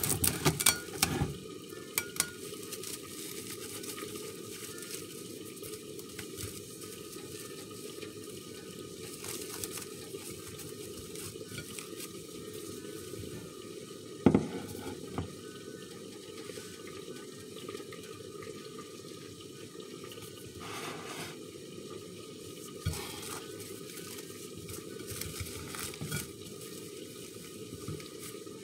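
Plastic cling film crinkling and rustling as gloved hands handle plastic-wrapped kenkey balls on a plate, with a single sharp knock about halfway through, over a steady low rushing background.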